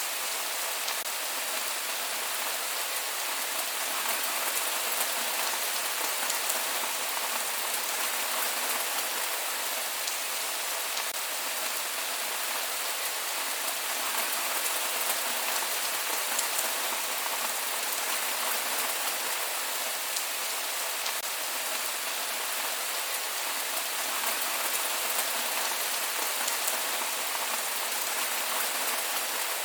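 Steady rain falling, without thunder: an even hiss with fine patter of individual drops and almost nothing in the low end.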